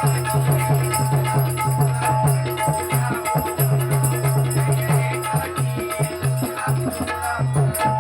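Instrumental stretch of bhajan music between sung lines of a gajar: a hand drum playing a fast, steady rhythm with a metallic jingling over it.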